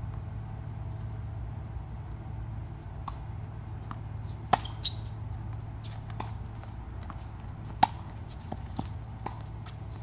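Tennis rally: sharp pops of the ball off the rackets and on the hard court, the loudest about four and a half, five and eight seconds in, fainter ones between. Under them a steady low rumble and a steady high whine.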